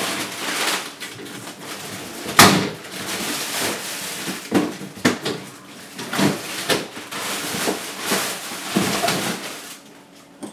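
Rummaging through a freezer: continuous rustling of frozen packages with repeated knocks and clunks of containers being moved, the sharpest knock about two and a half seconds in. It quietens near the end.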